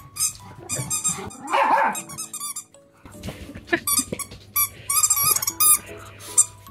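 A small dog barks, and a dog's squeaky toy gives runs of short, sharp squeaks near the start and again through the middle and second half, over background music.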